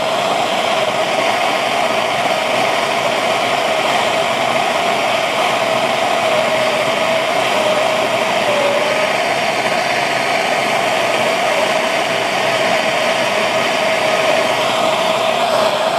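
Gas torch flame burning with a steady hissing roar, a humming tone running through it, as it heats an aluminum square-tube joint while HTS-735-11 low-temperature rod is melted into the seam.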